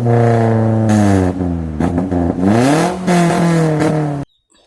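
Race car engine revving: the pitch sinks over about two seconds, climbs sharply again, then holds steady before cutting off abruptly near the end.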